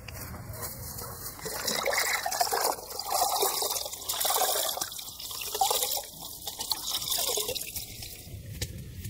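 A burlap sack dunked in a plastic bucket of water and squeezed out, the water splashing and trickling back into the bucket in several rounds, starting about a second and a half in.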